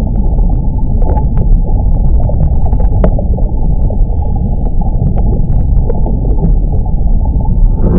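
Underwater ambience: a loud, muffled, deep rumble of moving water with scattered small clicks, one sharper click about three seconds in.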